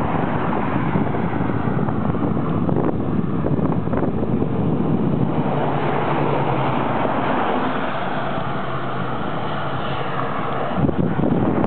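Wind rushing over the microphone of a hand-held camera on a moving bicycle, over a steady rumble of road and traffic noise. A single sharp knock comes near the end.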